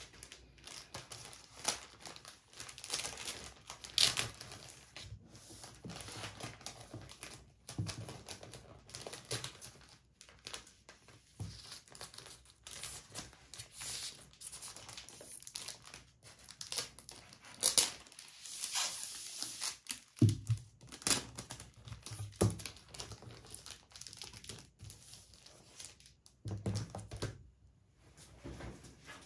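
Clear plastic sleeve crinkling and rustling in irregular crackles as a photobook is handled and slid into it, with a few soft knocks against the desk.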